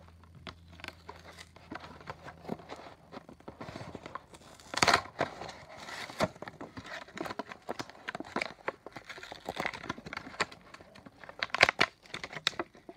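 A Hot Wheels die-cast car's plastic blister pack being torn open from its cardboard card by hand: irregular crinkling and crackling of the plastic, with the loudest rips about five seconds in and near the end.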